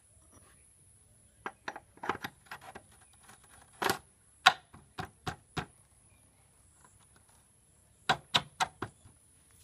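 Sharp metal clicks and taps in irregular clusters, the loudest about four and a half seconds in and a quick run of four near the end, as the speedometer gear pinion housing is worked onto the front wheel hub of a Hero Honda Hunk motorcycle.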